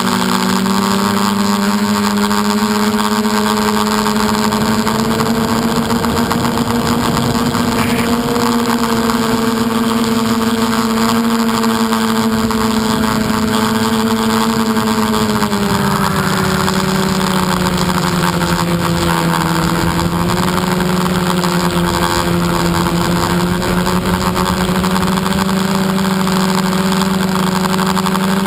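Steady hum of a radio-controlled aircraft's motor and propellers heard from the onboard camera, with a rushing air noise over it. The pitch drifts a little and drops slightly about halfway through.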